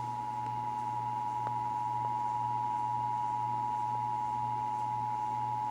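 Emergency Alert System attention signal: the two-tone alert of 853 Hz and 960 Hz sounding together, held steady and cutting off at the very end.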